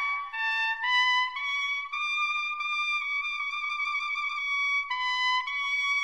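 Instrumental music: a single melody line climbs through a few notes, then holds one long wavering note, dips briefly near the end and steps back up.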